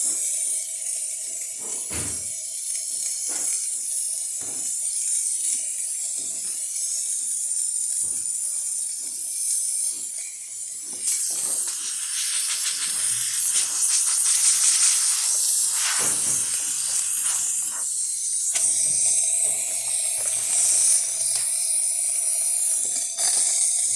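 Espresso machine steam wand hissing steadily, the sign that the steam boiler has come up to heat. The hiss grows louder about halfway through, with a few light knocks along the way.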